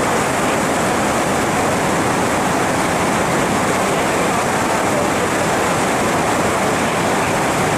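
Loud, steady rush of water pouring through the sluice gates of a dam, a torrent flowing very fast.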